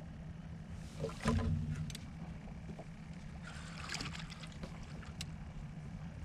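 Fishing boat's motor giving a steady low hum, with a knock and low thud about a second in and a short rustle or splash around four seconds.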